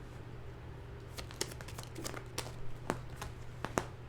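Tarot cards being handled and laid out: scattered light clicks and a soft rustle of card stock.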